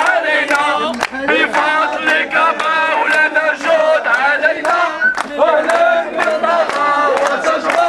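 Protest crowd chanting slogans in unison, a man's voice leading through a megaphone, with hand claps keeping time.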